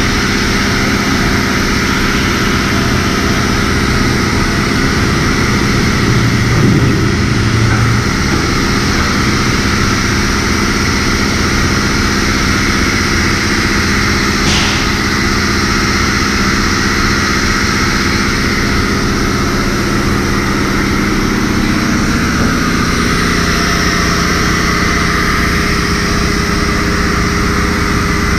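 High-pressure washer running steadily: a constant motor hum under the hiss of the water jet.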